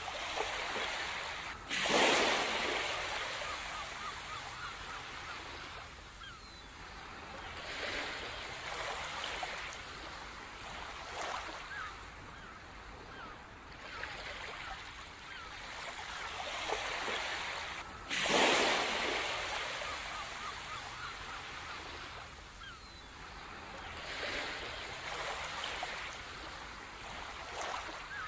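Ocean waves washing onto a beach, swelling and falling away every few seconds, with the two biggest surges about 2 s and 18 s in.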